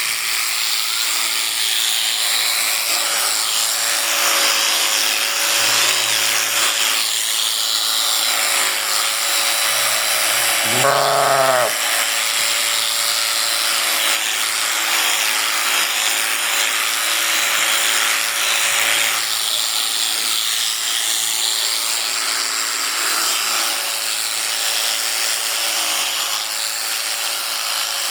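Electric sheep-shearing clippers running steadily as they cut through the fleece. A sheep bleats once, about a second long, around the middle.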